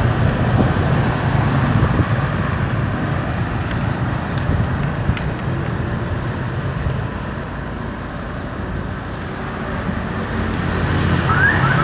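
Steady road traffic noise from passing vehicles, easing off somewhat in the middle and building again near the end.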